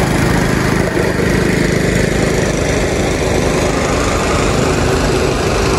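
An engine running steadily and loudly close by, with a dense low drone. It cuts off suddenly at the end.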